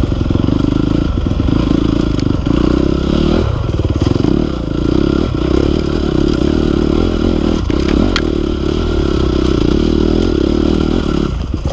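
Enduro dirt bike engine running steadily under load as the bike climbs a steep slope, with a few knocks and clatter from the bike going over rough ground.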